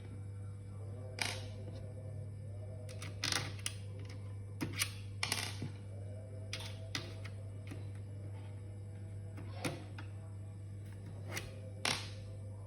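Irregular light clicks and taps of small parts and tools being handled while a laptop is worked on, over a steady low hum.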